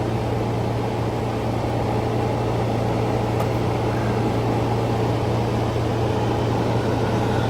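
SCS 2702 bus basement air conditioner running steadily on a bench test, its freshly installed compressor drawing about 5.7 amps: a constant low hum under an even whooshing noise.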